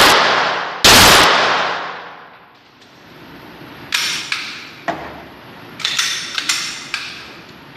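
A handgun shot about a second in, very loud, with a long echoing tail. Later come several fainter sharp clicks and knocks.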